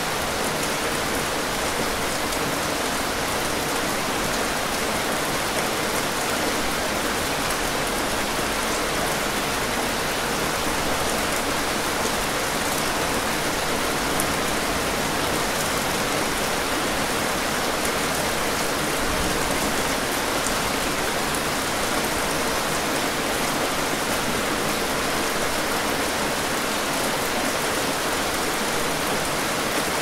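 Heavy rain falling steadily, an even dense hiss with a few faint drop ticks.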